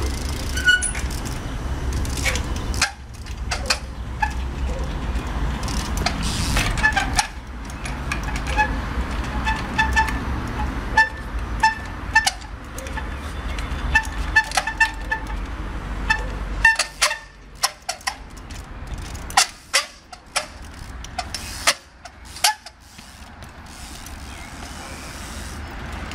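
Trials bike hopping onto and off concrete fountain edges: repeated sharp knocks of tyres and frame on concrete, over a low rumble of street traffic that drops away partway through.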